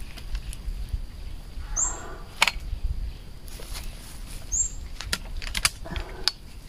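Long-handled bypass loppers cutting branches of a Siamese rosewood sapling: one sharp snap about two and a half seconds in, then several quicker clicks and snaps near the end, with leaves rustling.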